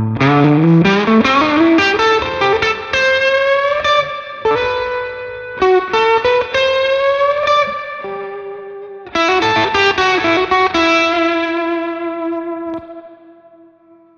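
Ivison Dakota electric guitar with Sunbear Sunbird pickups, played through a Magnatone Twilighter amp: a single-note lead line that opens with a fast rising run, bends several notes, and ends on a held note that rings and fades away.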